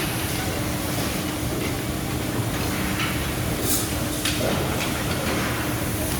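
A machine running steadily with a constant hum, a few brief hissing sounds coming and going over it.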